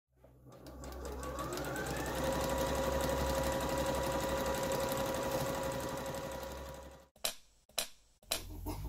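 Electric sewing machine running, rising in pitch as it comes up to speed over the first couple of seconds, then stitching steadily with a fast, even rattle of strokes. It stops about seven seconds in, followed by three sharp clicks about half a second apart.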